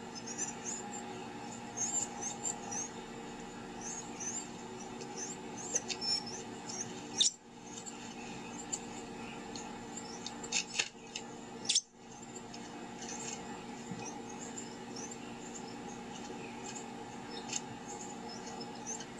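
Carolina wren chirping: many short, high chirps in quick loose clusters, over a low steady hum. Two sharp clicks come about 7 and 12 seconds in.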